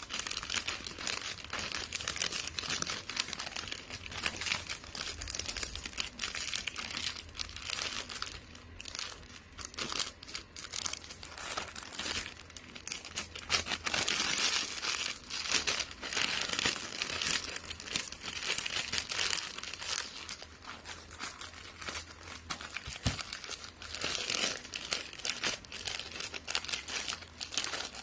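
Black gift wrap crinkling and rustling continuously, with many small crackles, as it is folded and creased by hand around a box.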